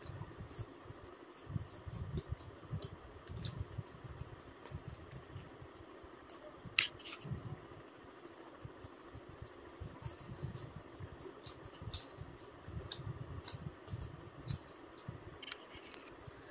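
Close-up eating sounds: chewing with many irregular mouth clicks and smacks, and one sharper, louder click about seven seconds in.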